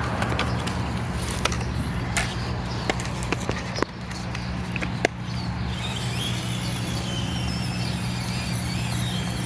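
Small electric motor of an RC rock crawler whining as it drives over rocks, with scattered clicks and knocks of tyres and chassis on rock during the first half, over a steady low hum.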